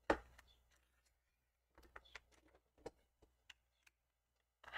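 Faint scattered clicks and light taps of small plastic parts being handled: a USB plug pushed into the charging port of a Zhiyun Smooth-Q gimbal's handle to line the port up, with one sharper click just after the start.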